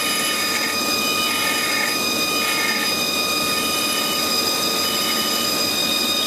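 Haas TL-3 CNC lathe spindle turning an aluminium bar, with a steady high whine over a dense hiss. An abrasive pad is held by hand against the spinning part to polish it, adding a scrubbing hiss that comes and goes in the first few seconds.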